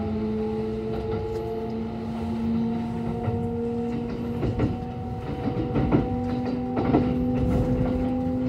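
Kintetsu 22000 series limited-express electric train heard from inside the car as it pulls away. The inverter and traction-motor whine climbs slowly in pitch while the train accelerates. From about halfway through, the wheels clack over rail joints and points.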